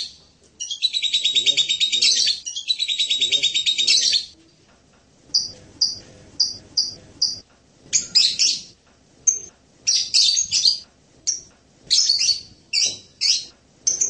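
Blue-crowned hanging parrot (serindit) singing: two long, rapid high trills in the first four seconds, then after a short pause a run of short high chirps about three a second, giving way to louder, more varied chirps from about eight seconds in.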